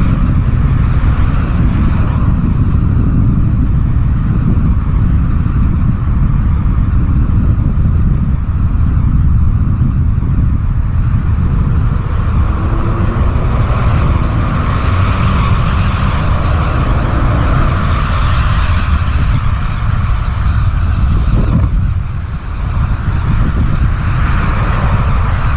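Loud, steady wind noise rumbling on the microphone, mixed with road noise, as heard while riding a bicycle. It dips briefly near the end.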